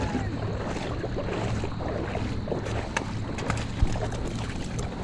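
Steady rushing noise of shallow river water, with wind buffeting the microphone and a few sharp clicks and knocks, the loudest about 3 and 4 seconds in.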